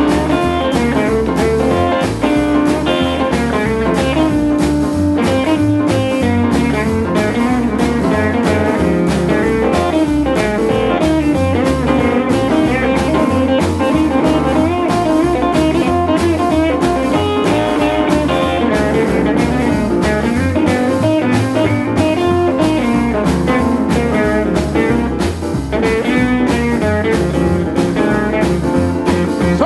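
Rockabilly band playing an instrumental break with no vocals: hollow-body electric guitar over upright bass and drum kit, with a steady beat throughout.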